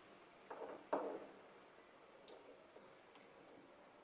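Small screwdriver clicking and tapping against the metal ring of an M42-to-Tamron Adaptall-2 lens adapter while its screws are being removed: two short knocks about a second in, the second the louder, then a few faint ticks.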